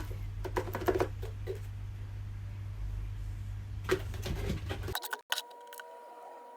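Light plastic clicks and knocks as the parts of a Fishmate P7000 automatic fish feeder are handled and fitted together, over a low rumble. About five seconds in the sound cuts abruptly to a quieter, steady hum.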